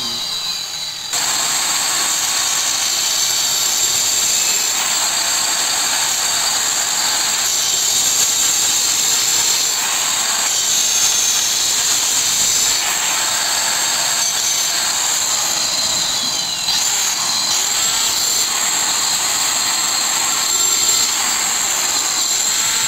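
Handheld electric marble cutter with a diamond blade cutting a curved notch into a ceramic floor tile. The motor runs with a steady high whine, picking up about a second in.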